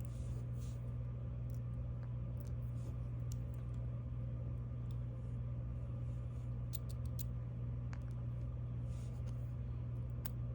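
Small, faint clicks and ticks, scattered irregularly, from pins, springs and parts of a pin tumbler lock being handled and taken out during disassembly, over a steady low hum.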